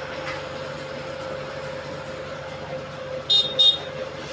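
Street sound with a steady hum and, a little over three seconds in, two short, shrill toots in quick succession.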